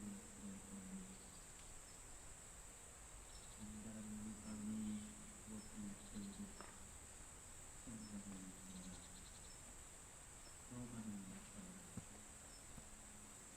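Faint, steady high-pitched chirring of autumn insects, with a low voice chanting a Buddhist prayer in phrases, heard about four times.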